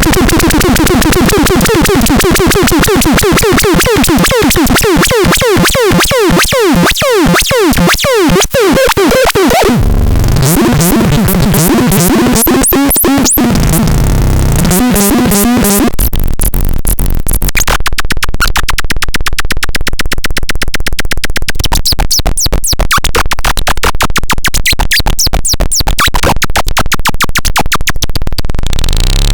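Loud, harsh electronic synthesizer sounds: a buzzing pulse that slows into separate clicks over the first eight seconds or so, then stepped low tones, then a fast, noisy clicking buzz.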